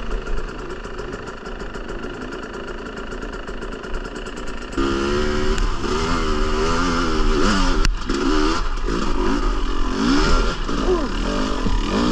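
Dirt bike engine running steadily, then from about five seconds in revving up and down in repeated throttle bursts, with one sharp knock near eight seconds.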